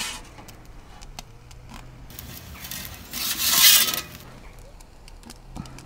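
Perforated metal pizza peel scraping over the stone floor of an Ooni Koda 16 gas pizza oven while the pizza is turned, with one harsh rasping scrape about three seconds in. Small metallic clicks and taps come before and after it.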